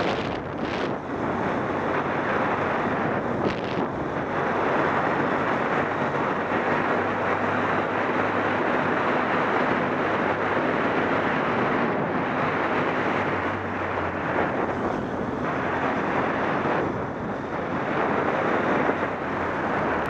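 Wind rushing over a helmet-mounted camera's microphone while riding a Yamaha Super Ténéré motorcycle, with the engine's steady low hum underneath.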